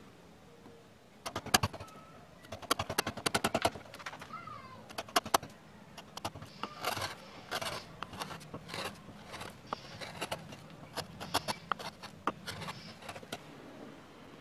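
A #8, 20 mm carving gouge cutting into wood by hand: starting about a second in, a run of quick clicks and short scraping cuts as chips are sliced away.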